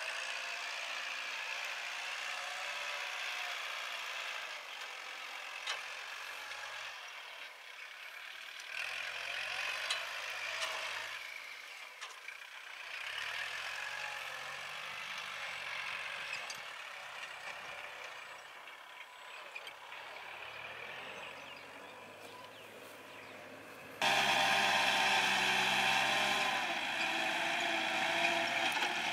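Kubota L4708 tractor's diesel engine running steadily as it pulls a disc harrow through the soil, its sound swelling and fading as it moves. Near the end it suddenly becomes much louder and closer.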